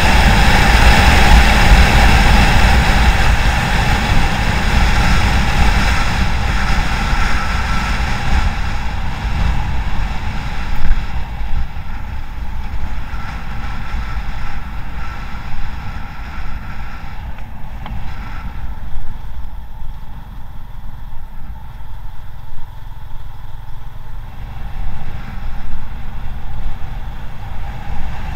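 Wind rushing over the microphone of a camera on a moving motorcycle, with the bike's running engine beneath it. The rush eases off through the middle and builds again near the end.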